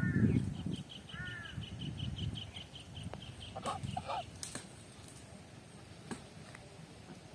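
Outdoor bird calls: two short arched calls at the start and about a second in, then a rapid trill of repeated high notes lasting about four seconds, over a low rumble in the first two seconds.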